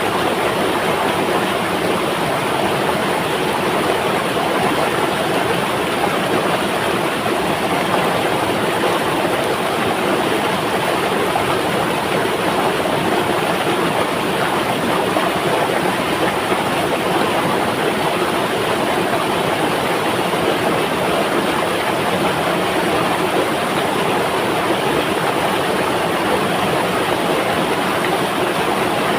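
Flowing river water rushing in a steady, unbroken wash of sound.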